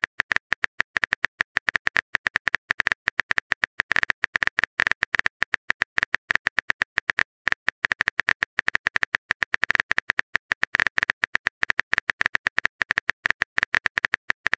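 Keyboard typing sound effect from a texting-story app: rapid, irregular key clicks, several a second, as a message is typed out letter by letter.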